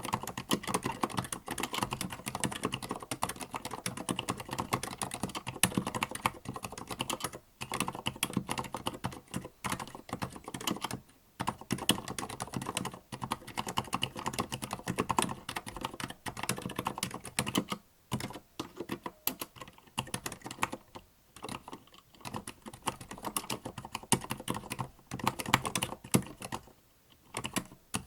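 Continuous typing on a Tada68 mechanical keyboard with Gateron Silent Black switches: a fast run of soft, muted keystrokes, broken by a few short pauses. Silent linear switches with built-in dampers, so the strokes give soft thocks rather than sharp clacks.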